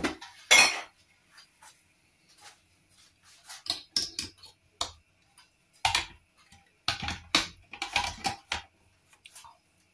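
Kitchen items being handled and set down: scattered clicks and knocks, the loudest about half a second in, with a cluster of knocks between about six and eight and a half seconds.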